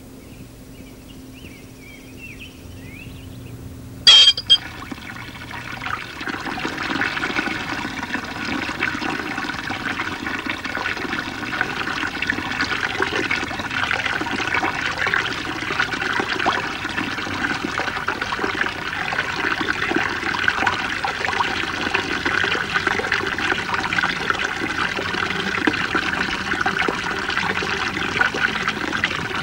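Steady rush of running water that rises in about four to six seconds in, just after a sharp click; before it, only faint high chirps over a low hum.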